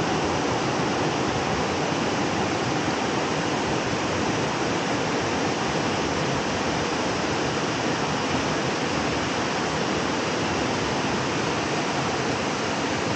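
Steady rush of water from small creek cascades spilling over rocks.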